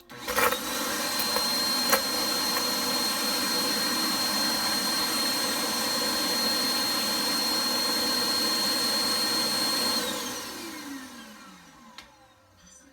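Suction motor of a Thanko Cleaner Box vacuum dustbin starting up, its whine rising to a steady pitch within about a second, running steadily for about ten seconds, then spinning down with a falling whine. A sharp click about two seconds in.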